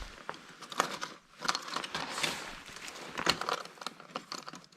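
Irregular light clicking, clattering and rustling as salvaged laptop parts (circuit boards and small plastic and metal pieces) are handled and shuffled about.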